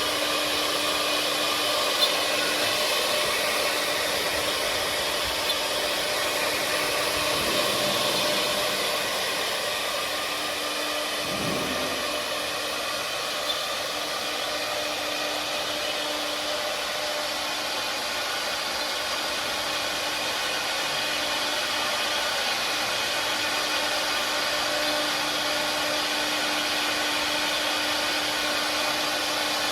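Four-head CNC wood carving machine running: a steady whine from the spindles with the hiss of milling, and a few small ticks.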